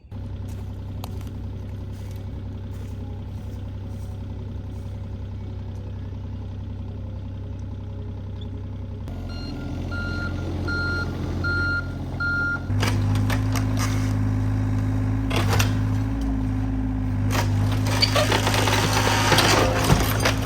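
Engine of a heavy machine running steadily, its backup alarm beeping four times about ten seconds in. The engine then runs harder, with repeated cracks and crunches of the cabin's timbers breaking as the structure is pushed down.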